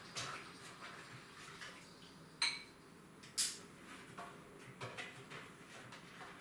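Dishes clinking and clattering as they are washed up at a kitchen sink: light scattered knocks, a sharp ringing clink about two and a half seconds in, and a louder clatter a second later.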